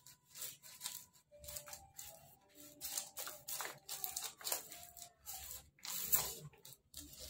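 Plastic crinkling and soil scraping as hands press potting soil into a soft black plastic nursery pot, in short irregular bursts.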